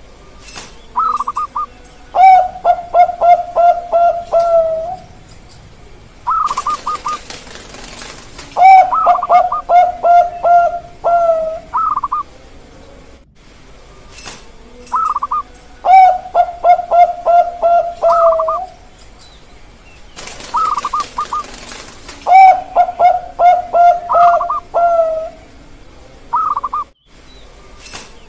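Zebra doves of the Thai-bred 'perkutut bangkok' song strain cooing in repeated phrases. Each phrase is a few higher coos, then a quick run of short, lower coos ending in a drawn-out note, and the phrases come about every six or seven seconds. Twice a brief rustling noise is heard between phrases.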